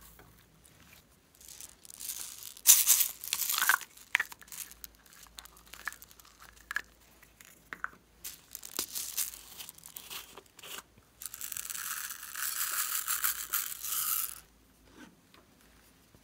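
Small plastic beads being emptied from a clear plastic tube into a glass bowl of slime, with plastic crinkling and a rustle early on, scattered small ticks, and then a steady pouring hiss for about three seconds near the end.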